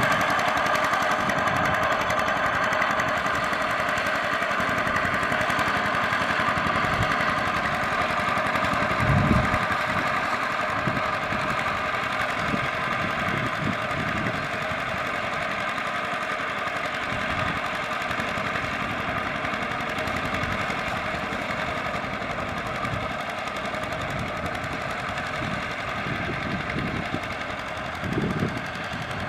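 Single-cylinder diesel engine of a two-wheel walking tractor chugging steadily under load as its steel cage wheels churn through a flooded rice paddy, slowly growing fainter as it moves off. A few low thumps come through, about nine seconds in and near the end.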